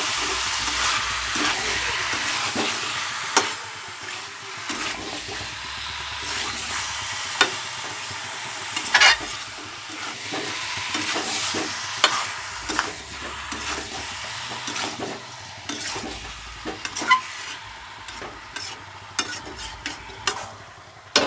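Chicken and potato pieces sizzling in spiced oil in a metal kadai while being stirred with a metal spatula that scrapes and clinks against the pan. The sizzle is loudest at the start and dies down, leaving mostly scraping and sharp knocks of the spatula.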